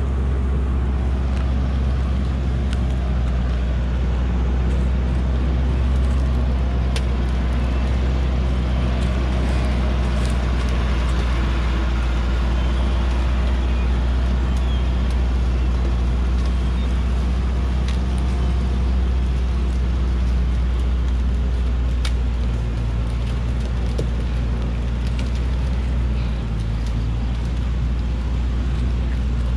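A heavily loaded log truck's engine runs steadily at low speed, with scattered clicks and knocks. The engine note shifts slightly near the end.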